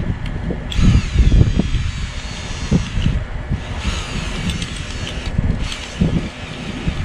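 Cordless drill running in two longer runs and a short one, driving an ice anchor into the ice with an anchor drill adapter. Wind buffets the microphone throughout.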